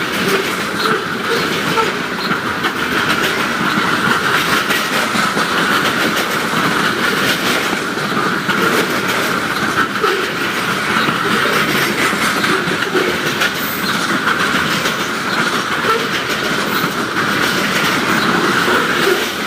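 Covered grain hopper cars of a slow freight train rolling past, a steady noise of steel wheels on rail with a constant higher ringing band over it and no horn.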